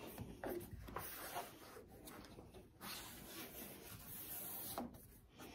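Rubber roof-rail weatherstrip for a 1969 Dodge Charger being squeezed by hand into its channel: faint, irregular rubbing and scuffing with a few soft knocks.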